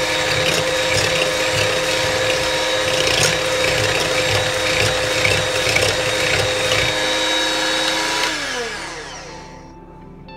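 Electric hand mixer running steadily at speed, its twin beaters whipping yogurt in a steel bowl. About eight seconds in it is switched off and its whine falls in pitch as the motor winds down.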